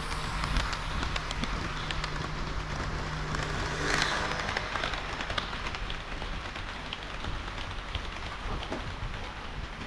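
HO-scale model train of KiHa 40 and KiHa 58 diesel railcars running on the layout: a steady patter of small wheel clicks over the track and a low motor hum that stops about halfway through, with a louder rush about four seconds in.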